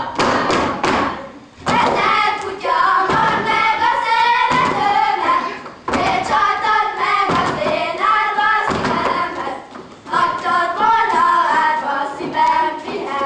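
A group of young girls singing a Hungarian karikázó circle-dance song together while dancing, their steps thudding on the stage. The first second and a half is steps alone, then the singing comes in three phrases with short breaks between them.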